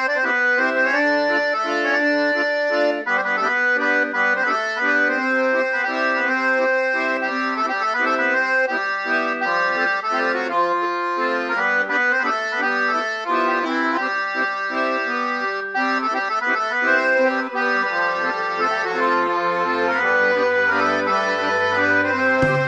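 Accordion playing an instrumental melody over held chords, in a traditional style. A low sustained bass line joins near the end.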